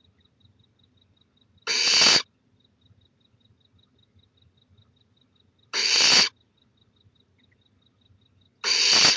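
Barn owl nestling snoring: three harsh, hissing begging calls, each about half a second long and a few seconds apart.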